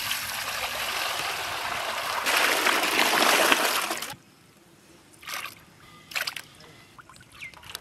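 Water poured from a plastic pot into an aluminium basin, a steady splashing stream that grows louder about two seconds in and cuts off suddenly a little after four seconds. Then two short splashes as pieces of goat offal are dropped into the water.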